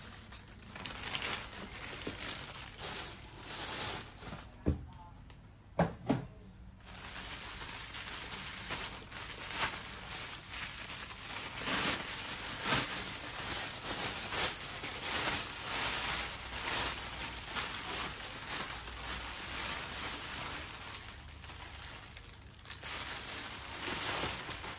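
Thin plastic bags crinkling and rustling as they are handled and pulled open, with three sharp knocks about five and six seconds in.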